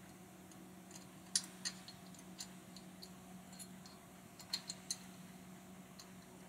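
Faint, irregular small clicks and taps of metal camera mounting parts being handled: a fluid-head quick-release plate being fitted and lined up against an Arca-Swiss clamp. A few clicks come about a second and a half in and a tighter cluster around five seconds in, over a steady low hum.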